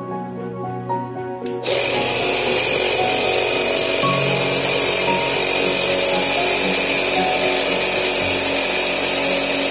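Portable 12V DC tire inflator's compressor switches on about two seconds in and runs steadily at a constant pitch, pumping air into a car tire.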